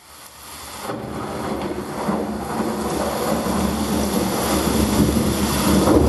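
Low, rumbling, storm-like intro of the dance's music track, fading in from silence and swelling steadily louder, with a few held low tones beneath the noise.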